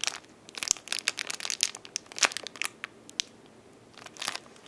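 Clear plastic packaging crinkling as it is handled. There is a quick run of crackles for the first couple of seconds, a lull, and another short burst of crinkles near the end.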